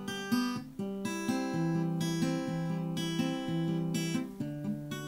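Acoustic guitar played finger-picking style with no voice: a run of plucked notes over a repeating bass pattern.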